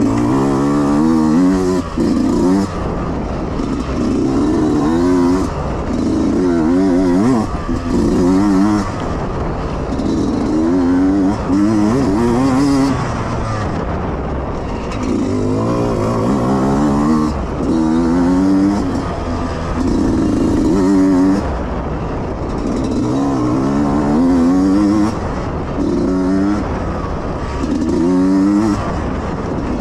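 Yamaha YZ125X two-stroke dirt bike engine revving up and dropping back again and again as the rider accelerates, shifts and rolls off between sections of the course.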